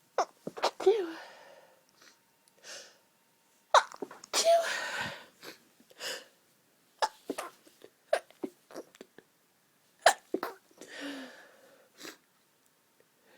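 A person stifling a run of allergy sneezes: many short, sharp, clipped sneezes, with two longer half-stifled ones, one near the middle and one near the end.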